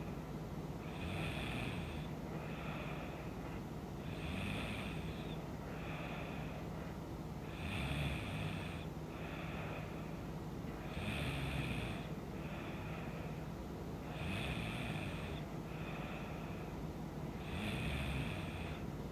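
A woman snoring in her sleep. The breathing comes in a steady rhythm, about six breaths, roughly every three seconds, each a louder snore followed by a softer breath.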